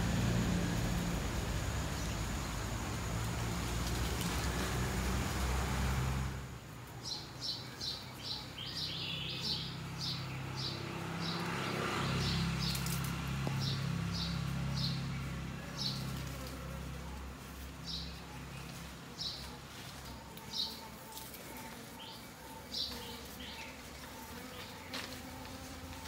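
Honeybees buzzing around flowers, with small birds giving short high chirps over and over from about six seconds in. A steady rushing noise fills the first six seconds and cuts off abruptly.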